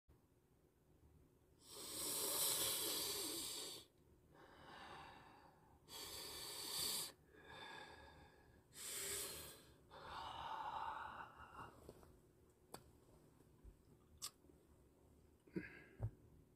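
A man's breathy, voiceless exhalations close to the microphone, six of them of a second or two each, followed by a few faint clicks.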